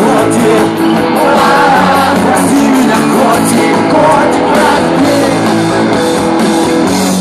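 Live rock band playing loud, with a singer over guitars and drums.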